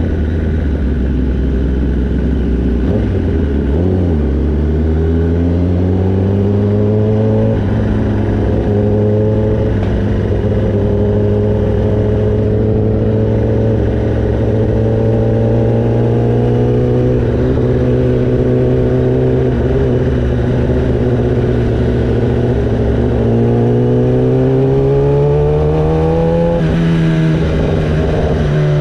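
Sportbike engine heard close from on board, running at low road speed. Its pitch climbs a few times as it pulls, then drops sharply near the end at a gear change, with some wind noise underneath.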